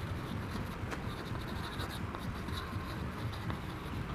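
Chalk writing on a chalkboard: a run of short, irregular scratching and tapping strokes as words are written, over a steady low background hum.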